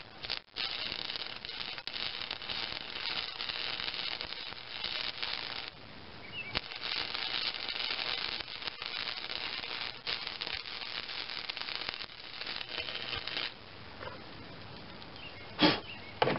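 Electric welding arc crackling steadily on thin mower-deck steel, with brief breaks about half a second in and about six seconds in, stopping a few seconds before the end. The heat is high enough to burn a hole right through the deck.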